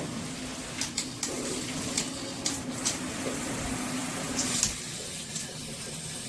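Water spraying steadily from a handheld shower wand, a rushing spray with a low hum in the pipes, and a few short clicks partway through.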